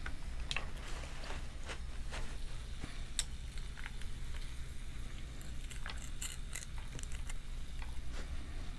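Faint scattered clicks and rustles of fingers feeling over and handling boiled seafood and a paper towel, over a steady low hum.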